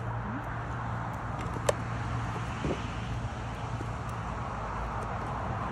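Steady background noise with a continuous low hum, and one sharp click about a second and a half in.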